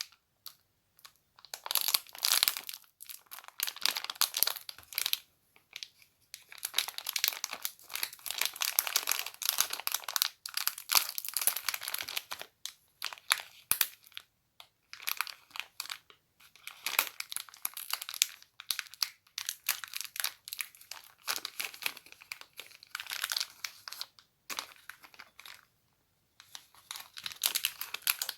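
Close-up crinkling and rustling of a crumpled, crackly material, in irregular bursts of a few seconds with short pauses between them.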